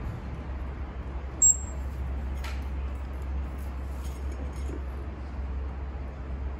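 Steady low outdoor rumble, with one short, sharp high-pitched chirp about a second and a half in and a faint click a second later.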